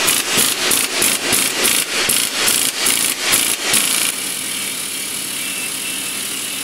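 Pneumatic impact wrench hammering on the threaded rod of a bearing puller to draw a bearing off a manual transmission shaft. For about four seconds it pulses about three times a second, then it settles into a steadier whirring run with a hiss.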